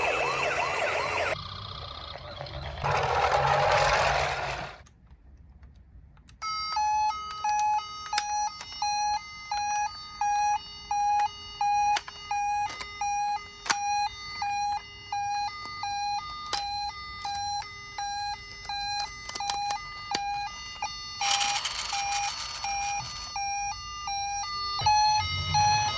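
Toy ambulance minicar's electronic siren sound: a single beeping tone repeating on and off in a steady rhythm, with small plastic clicks throughout. It is preceded by a short burst of noise and a brief near-silent gap.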